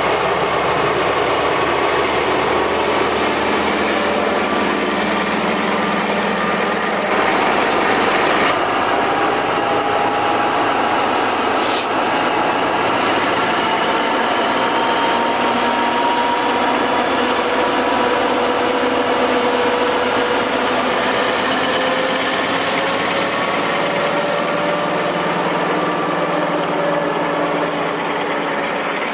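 Diesel-electric locomotive's engine running steadily as it hauls a passenger train past, followed by the coaches rolling by on the rails.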